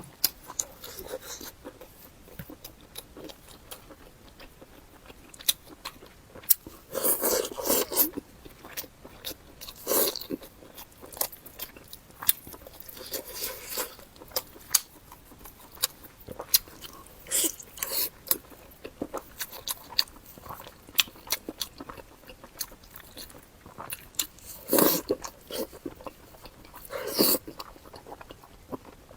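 Close-miked chewing and biting of pig face meat: wet mouth clicks and smacks, with several louder crunching bites.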